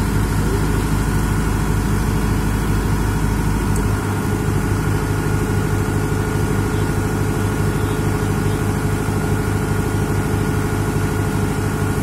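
A 40 kVA diesel generator set running steadily, a constant low engine hum with a steady pitch. The lowest rumble shifts slightly about four seconds in.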